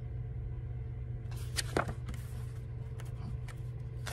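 Paper pages of a paperback coloring book being handled and turned: a few soft rustles and one sharper flap a little under two seconds in, over a steady low hum.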